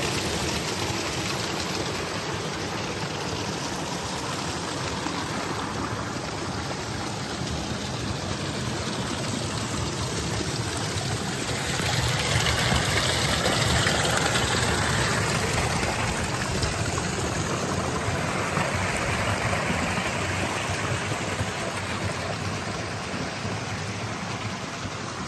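A small mountain stream rushing and splashing over rocks in a steady wash of water noise, louder for a few seconds about halfway through.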